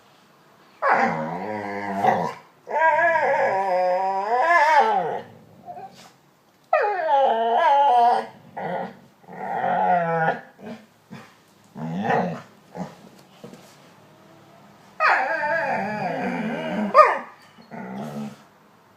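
A dog "talking": a series of drawn-out, wavering whines and howl-like grumbles that bend up and down in pitch, with shorter yips and grunts between the long calls.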